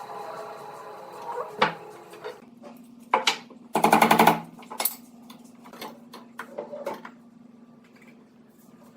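Woodworking workshop sounds: a few sharp knocks and, about four seconds in, a short rapid rattling burst from a tool, over a steady low hum.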